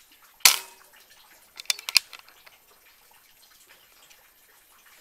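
A single sharp crack of a PCP air rifle shot about half a second in, dying away quickly. Around a second later comes a quick run of four or five small clicks and knocks.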